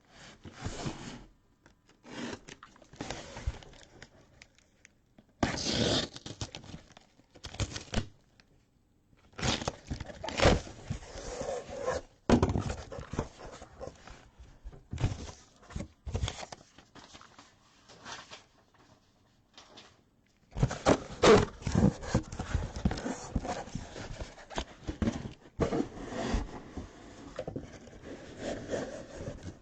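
A cardboard card case and its wrapping being torn open and the boxes handled: irregular tearing, scraping and rustling in bursts, with a few short pauses.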